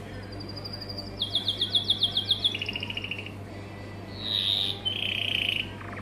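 Domestic canary singing a varied song: a high trill, then a run of quick repeated notes at about eight a second, then shorter trills at lower pitches and a buzzy note, over a faint low steady hum.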